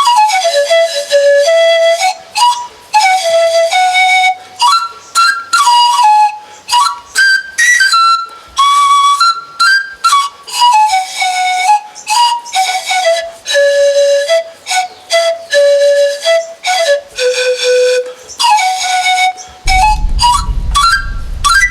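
Rondador, an Andean bamboo panpipe, played as a breathy whistling melody. It moves in short phrases of quick notes, most of them running down from high to low, with brief pauses between the phrases.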